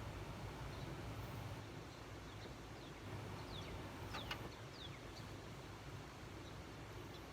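Quiet outdoor background with a steady low hum and a brief cluster of short, high, falling chirps about halfway through.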